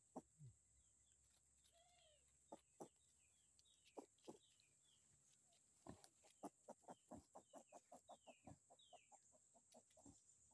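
Faint calls of small farm animals: repeated high, falling chirps, then from about six seconds in a fast run of short low calls, about four or five a second, over a steady high hiss.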